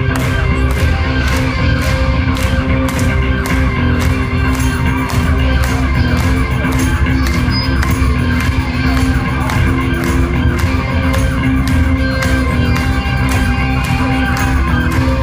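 Live rock band playing loudly in a large hall: electric guitars over a steady bass and a drum beat of about two strokes a second.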